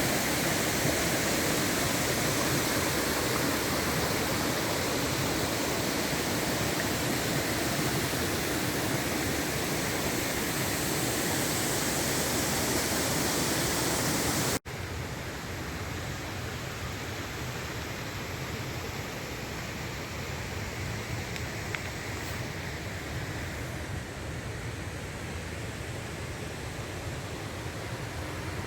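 Natural running water, a steady rushing hiss. About halfway through it cuts abruptly to a different, quieter stretch of water with less hiss.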